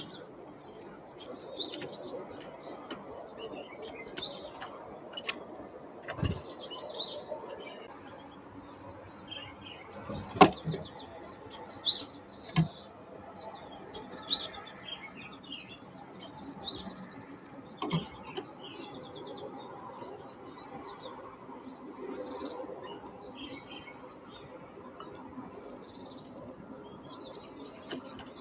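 Wild songbirds calling with many short, high chirps, with a few sharp knocks about six, ten, twelve and eighteen seconds in.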